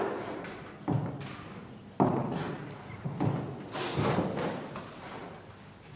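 A series of heavy thumps, roughly one a second, each fading away with an echo.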